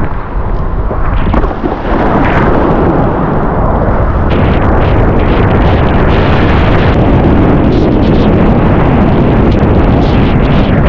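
Loud, constant wind buffeting the microphone, mixed with the rush and splash of a kiteboard planing through choppy water.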